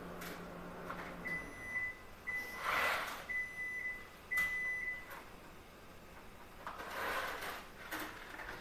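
A kitchen appliance gives four steady high electronic beeps about a second apart. Short noisy bursts of handling and clatter come as lasagna noodles go into a pot of boiling water and are stirred.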